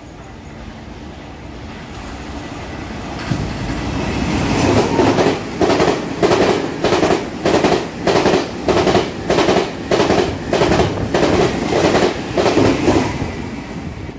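Taiwan Railways PP Tze-Chiang push-pull express (E1000 series) running through a station at speed, about 130 km/h. A rising rumble as it approaches, then a fast, regular clatter of wheels, about two beats a second as each car goes by, that fades near the end.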